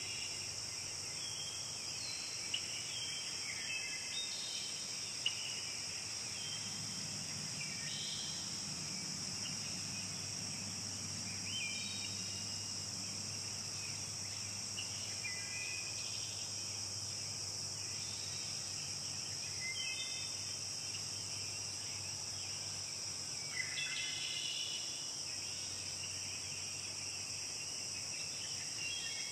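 Forest ambience: a steady, high-pitched chorus of insects such as crickets, with short bird calls every few seconds, some of them falling in pitch, and a faint low hum underneath.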